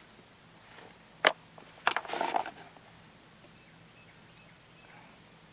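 Insects chirring steadily in a high pitch. A little over a second in come two sharp clicks and a short rattle as the break-barrel Ruger Mark I pellet pistol is closed after cocking and handled.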